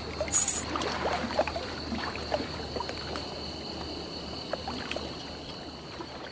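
A short metallic jingle, like coins shifting in a leather pouch, just after the start. After it comes a steady crackly background with many scattered small clicks.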